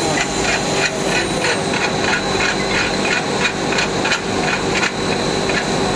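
ABS filament extrusion line running: a steady machine hum and hiss with a constant high whine, and a regular mechanical ticking about three times a second that stops near the end.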